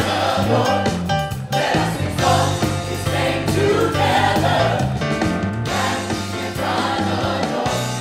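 A gospel worship song sung by a group of singers on microphones, backed by a live band with keyboard and electric guitar, over a steady run of low bass notes.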